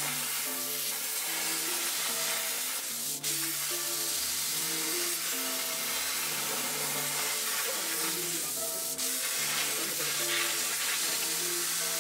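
Background music over a steady hiss of a plasma cutter torch cutting sheet steel.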